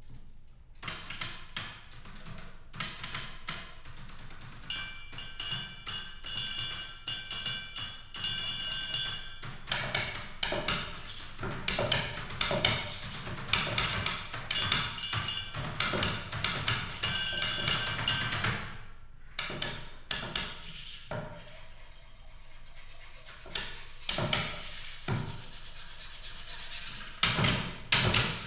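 Percussion piece played on office supplies: pencils, a computer keyboard and a water bottle clicking and tapping in quick, shifting rhythms. A high ringing tone is held for about five seconds starting about five seconds in, and the playing thins out and quietens for a few seconds past the middle before picking up again.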